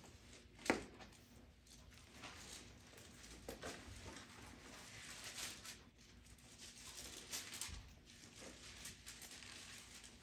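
Faint rustling of Bible pages being turned as a room looks up a passage, with one sharp knock less than a second in.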